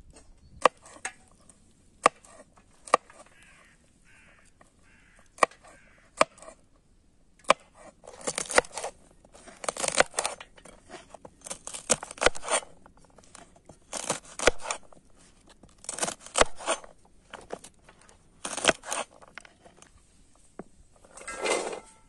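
Large kitchen knife chopping green beans on a wooden cutting board: a few single sharp knocks at first, then quick runs of chopping strokes about every two seconds. Near the end, a brief rush as the cut beans are tipped off the board into a steel colander.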